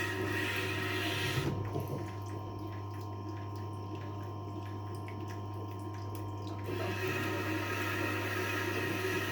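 Tormek T-8 wet sharpening machine running with a steady hum, a kitchen knife blade scraping on its wet grinding stone. The blade comes off the stone about a second and a half in, leaving the machine's hum and a few light clicks, and goes back on with the scraping after about seven seconds.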